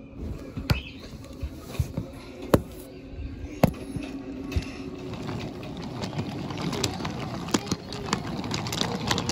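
Wooden toy subway cars being pushed along a wooden train track: a rolling rumble of the wheels with scattered clicks and knocks as cars are set down and bump over track joints, growing busier near the end.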